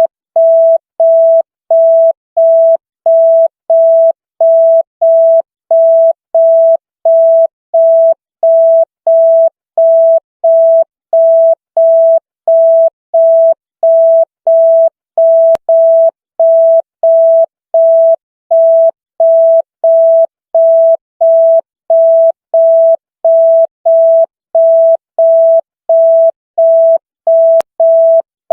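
An electronic signal tone beeping on and off at one steady pitch, evenly, about three beeps every two seconds.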